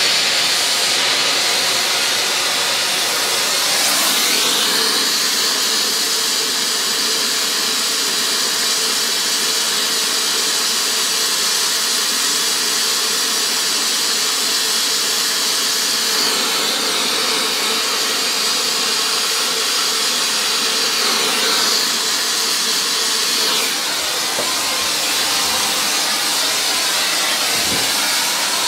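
Gas torch burning with a steady, loud hiss as it heats the end of a steel rivet blank in the press die to forging heat. The hiss shifts slightly in tone a few times as the flame is moved.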